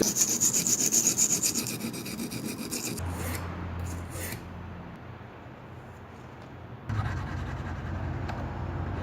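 A pocket knife's steel blade is rubbed with rapid scraping strokes for about three seconds, the kind of sound made by sanding, brushing or sharpening it. The strokes then fade to a few faint scrapes over a low steady hum.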